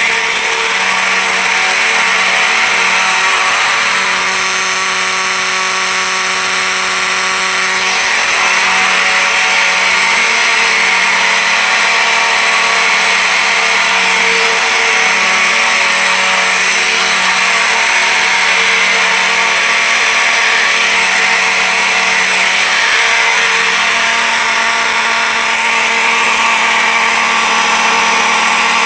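Electromechanical fire alarm horns sounding together on a continuous signal: a steady, very loud, raspy buzz with no pulsing. The owner puts the raspiness down to horns needing adjustment and a bad component in the Faraday horn strobe.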